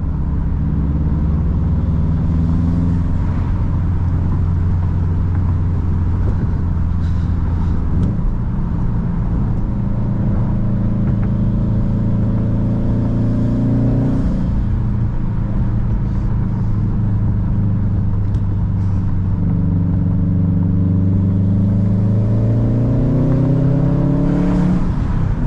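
A modified car's engine pulling through the gears on a winding road: its pitch holds steady, drops twice as the driver shifts or lifts off, then climbs steadily for several seconds under acceleration near the end.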